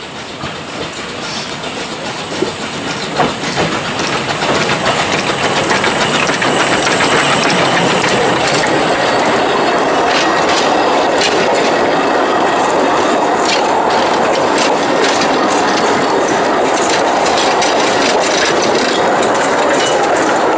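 Narrow-gauge steam train approaching and passing close by. It grows louder over the first five seconds or so, then the carriages roll past with a steady rumble and frequent clicks of wheels over the rail joints.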